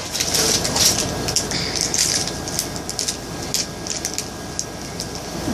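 Snack packaging crinkling and rustling as it is handled: a continuous crackle with many sharp little clicks.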